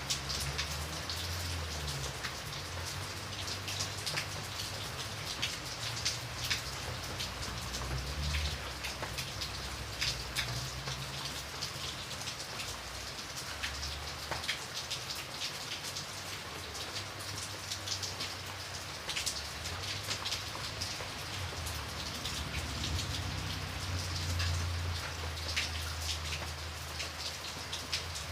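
Steady rain falling, with a dense patter of individual drops hitting a surface. A low rumble underneath swells and fades.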